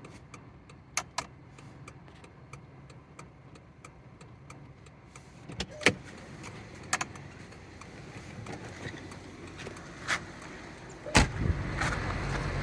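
Turn-signal flasher of a 1987 Jaguar XJ6 Vanden Plas ticking at an even rate of about three clicks a second, working properly on a newly replaced relay. After about five seconds a few louder knocks follow, then a heavy thump near the end and a rise in rumbling noise.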